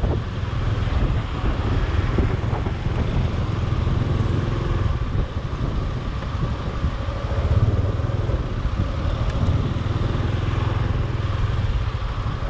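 Motor scooter engine running steadily while riding slowly, with road noise.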